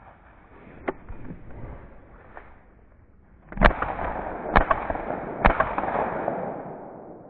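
.22 Long Rifle rifle firing three shots about a second apart, the first coming about three and a half seconds in.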